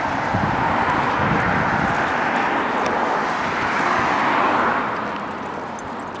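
A car passing on the street, its tyre and road noise swelling and then fading away about five seconds in.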